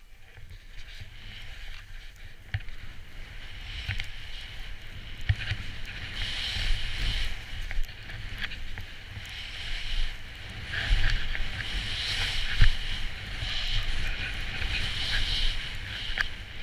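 DPS skis hissing through powder snow in a run of turns, the hiss swelling and fading with each turn and growing stronger after about six seconds. Under it is a low rumble of wind on the microphone, with a few thumps.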